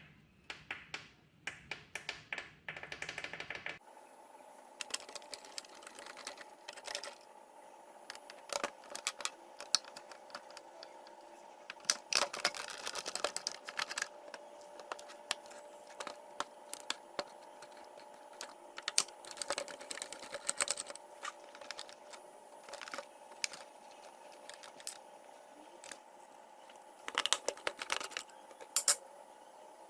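Irregular clicking and tapping of small hard objects being handled, with clusters of quick clicks, over a faint steady hum that starts about four seconds in.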